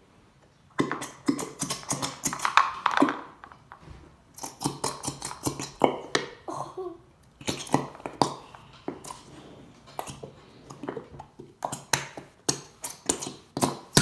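Quick irregular clicks and taps from a plastic bottle of thick glow-in-the-dark glue being squeezed and worked to force the glue out, which is hard to get out. They start about a second in, with a brief lull about four seconds in.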